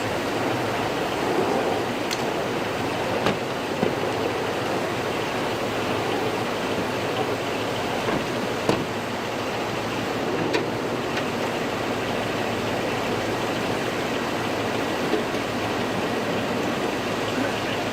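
Steady rushing outdoor background noise, with a few sharp clicks scattered through it; the loudest click comes a little past halfway.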